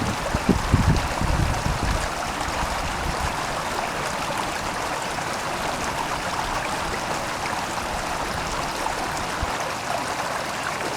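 Steady rush of flowing water, with a few low thumps in the first two seconds.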